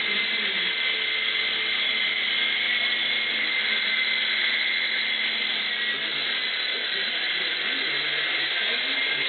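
Small three-channel RC helicopter in flight, its electric motors and rotor blades giving a steady high whir with a faint whine running through it.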